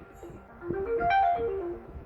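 Samsung Galaxy ringtone from the 'Galaxy' set playing on a Galaxy Tab A11. A short melodic phrase of clear notes starts about half a second in, climbs and then steps back down, and repeats in a loop.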